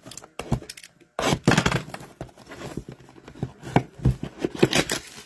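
Hands tearing open a cardboard hockey-card blaster box and pulling out the foil-wrapped packs: irregular tearing and rustling, loudest from about a second in.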